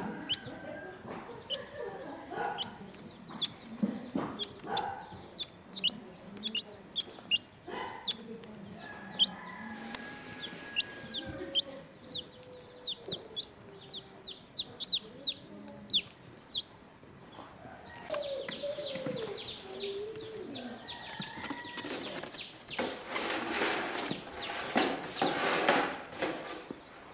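Domestic chicks peeping: many short, high, falling peeps, several a second, with lower clucking and calls from adult chickens. Near the end comes a few seconds of louder scratchy rustling.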